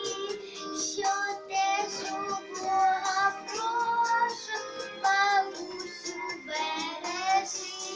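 Children singing a song together over instrumental accompaniment, with held notes that waver in pitch.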